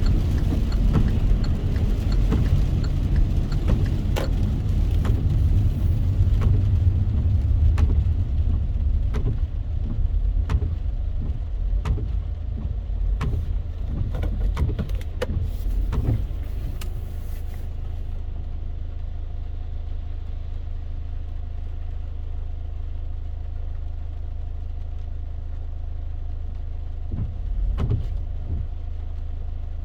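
Car in the rain, heard from inside: low road rumble with raindrops ticking on the body through the first half, then, a little over halfway, it settles to a quieter steady engine hum, as when the car slows and idles.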